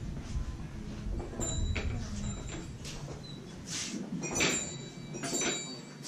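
Handling noise from a hand-held camera: a low rumble for the first few seconds, then about five short rustling, scraping bursts.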